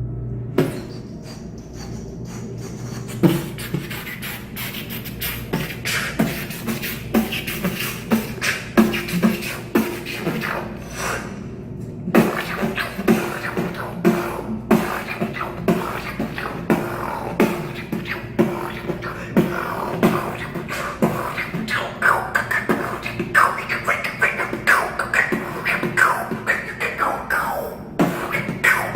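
Beatboxing: one person's fast vocal percussion in a steady rhythm, with a steady held tone underneath.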